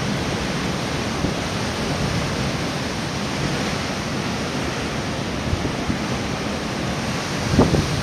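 Heavy sea surf breaking against a stone pier wall in a strong wind: a steady rush of churning water, with wind buffeting the microphone. A brief low thump comes near the end.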